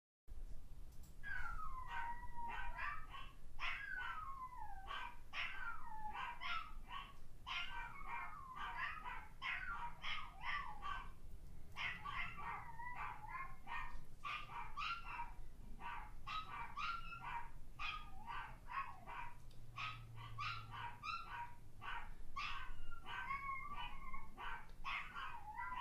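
Recording of several dogs barking and yipping, played back through a speaker: a dense run of short, high calls with bending pitch and only brief gaps.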